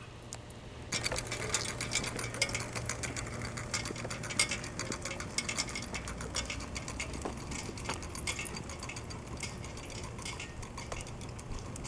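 Triumph Bonneville T140's parallel-twin engine running at low road speed, heard as a steady low hum with rapid mechanical clicking, a little louder from about a second in.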